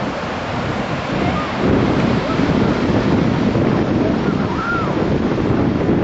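Small waves breaking and washing up the beach, with wind buffeting the microphone in a steady rumble.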